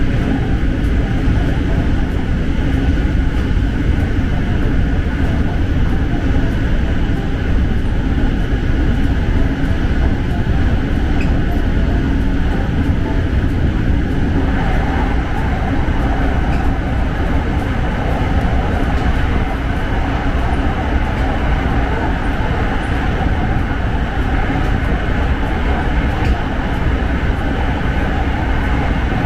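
SRT Red Line electric commuter train running between stations, heard from inside the carriage: a steady rumble of wheels on rail and running gear, its tone shifting about halfway through.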